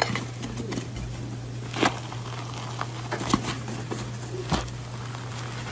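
Soft crackling and small clicks as the crust of a molten chocolate cake is torn apart by hand, over a steady low hum.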